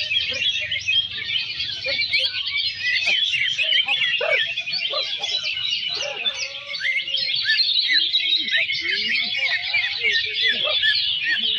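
Dense chorus of many caged green leafbirds (cucak ijo) singing at once: a steady, unbroken wall of overlapping high chirps, trills and whistles.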